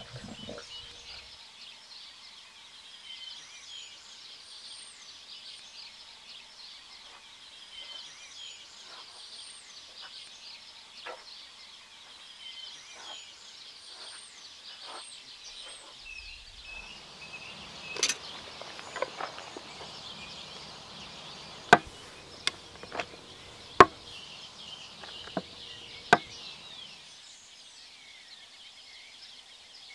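Birds chirping steadily, with faint footsteps on gravel in the first half. From about two-thirds of the way in, a series of sharp wooden knocks as chess pieces are set down on a wooden chessboard.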